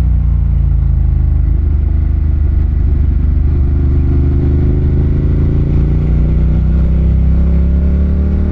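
Ducati Monster 1200's L-twin engine running at low revs while riding. The revs fall over the first couple of seconds, hold steady, then climb slightly near the end.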